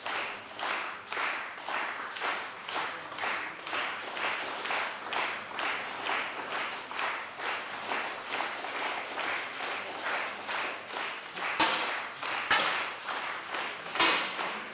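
Spectator crowd clapping together in a steady rhythm, just under two claps a second. Near the end come a few sharper, louder cracks.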